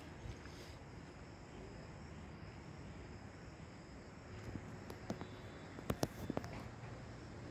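Faint outdoor ambience with insects chirring steadily and high. A few sharp clicks or knocks come about five to six and a half seconds in, the loudest near six seconds.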